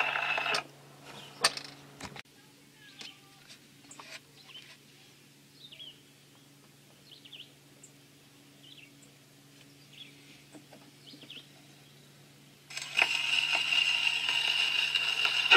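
Acoustic wind-up gramophone between two 78 rpm records: the old record cuts off, a few sharp clicks come as the soundbox is lifted and the disc handled, then a long quiet stretch with faint bird chirps. About thirteen seconds in, the needle goes down on the next shellac disc and surface hiss and music start abruptly.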